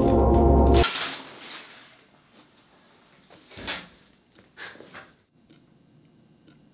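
Low droning horror-score music cuts off abruptly about a second in with a short rushing swish. Near-quiet room tone follows, with a dull thump and a few faint clicks and knocks.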